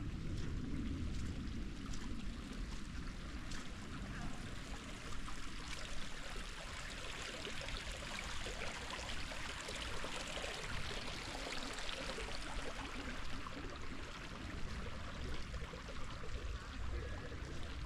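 Creek water flowing and trickling over rocks in a steady rush, growing a little brighter and fuller for a few seconds midway before easing back.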